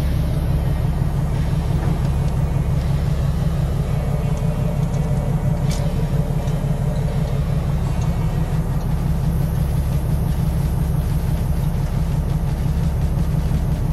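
Caterpillar 3406 diesel engine of a semi tractor running steadily at low speed in traffic, a deep pulsing rumble heard from inside the cab.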